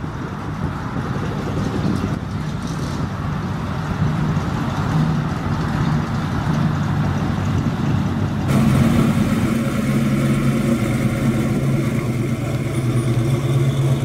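Hot rod coupe's engine running as the car rolls slowly past. About eight and a half seconds in the sound cuts to a 1970 Chevrolet Chevelle SS's V8 running with a steady low rumble as it pulls away.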